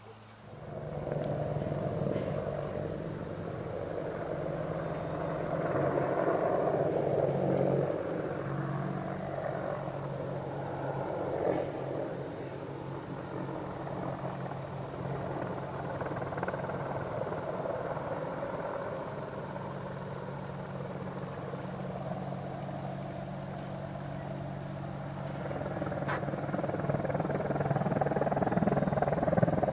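Boeing AH-64D Apache attack helicopter in display flight: a steady drone of its rotor and twin turboshaft engines. The sound comes in about a second in and grows louder near the end as the helicopter passes nearly overhead.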